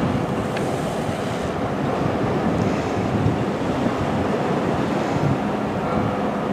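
Steady wind noise on the microphone and surf washing on a rocky shore, with a passenger train running along the coastal railway under it.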